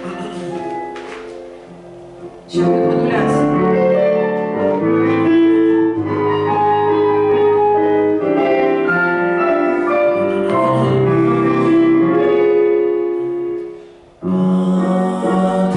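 Piano music with held chords, coming in loudly about two and a half seconds in, dying away just before the end, then starting again.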